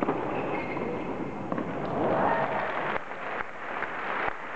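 Crowd applauding at the end of a point in a tennis match: a dense clatter of many hands clapping, swelling about two seconds in before thinning out.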